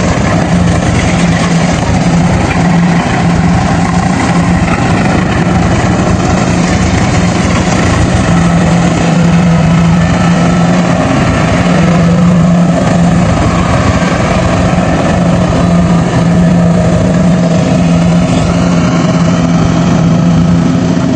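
Kubota DC-70 Pro rice combine harvester running steadily while it cuts and threshes standing rice, its diesel engine humming over the clatter of the cutting and threshing machinery.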